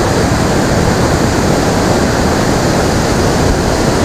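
A mountain creek rushing in whitewater over and between boulders, a loud, steady noise of water.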